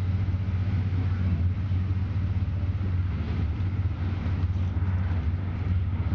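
Steady low rumble and running noise inside a passenger train car.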